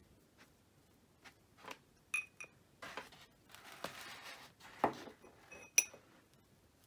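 Craft tools being handled while glue is brushed on: scattered light taps and clicks, two short ringing clinks like something tapped against a glass jar (about two seconds in and again near the end), and a brief rustle of brushing in the middle.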